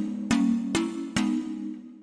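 Background music: plucked string notes struck about two or three times a second, the last note dying away near the end.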